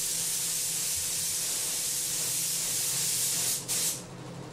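Gravity-feed air spray gun spraying: a loud, steady hiss of compressed air and atomised paint. It breaks off briefly about three and a half seconds in, gives one short burst more, then stops, leaving a fainter hiss.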